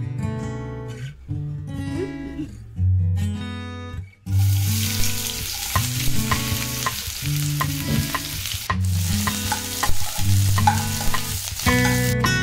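Background music, then, about four seconds in, sliced onions begin sizzling as they fry in hot oil in a stainless-steel pan. A metal spoon clicks and scrapes against the pan as they are stirred, and the music carries on underneath.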